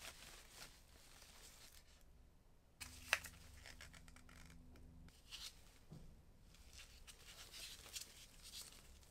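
Faint handling of packaging and accessories by gloved hands: soft rustling of paper and plastic with scattered light ticks, and one sharp click about three seconds in.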